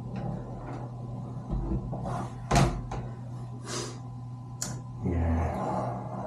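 Wooden laptop stand and laptop being handled and set down: a few separate sharp knocks, the loudest about two and a half seconds in, then a dull thump about five seconds in, over a steady low hum.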